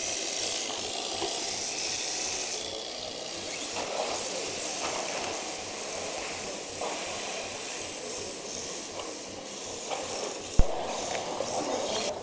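Radio-controlled drift cars sliding around a hall floor track: a high motor whine rising and falling over a steady hiss of tyres sliding on the floor. One sharp knock about ten and a half seconds in.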